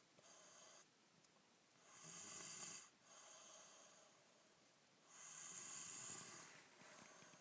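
A young child snoring in sleep: a faint, hissy snore on each breath. The two loudest come about 2 and 5 seconds in, with softer breaths between.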